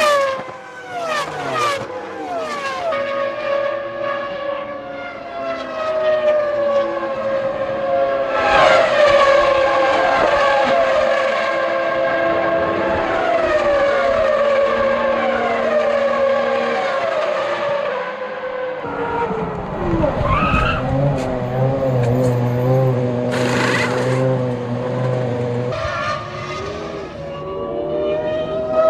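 Formula One cars with screaming V10 engines racing past one after another, each engine note falling in pitch as the car goes by. For a stretch past the middle a single engine holds a steadier, wavering note over a low hum, before more cars pass near the end.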